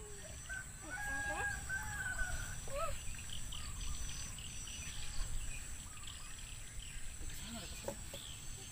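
Small birds chirping, with short whistled notes and repeated high peeps, over a steady high-pitched hum and a low rumble.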